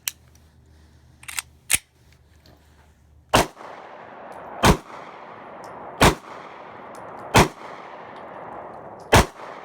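Glock G43 9mm subcompact pistol being fired: a few quieter shots in the first two seconds, then five loud shots spaced about a second and a third apart.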